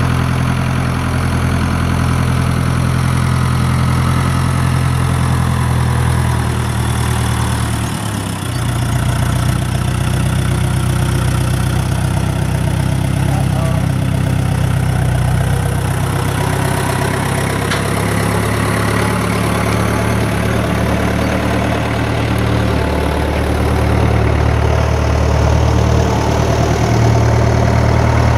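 Tractor engine running steadily with a low, even drone; it dips briefly about eight seconds in, then runs on, a little louder near the end.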